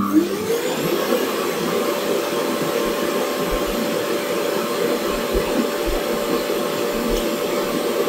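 Xiaomi Robot Vacuum X10+ base station's auto-empty suction motor pulling the dust out of the docked robot into the dock's bag. It spins up with a rising whine in the first half second, then runs steadily.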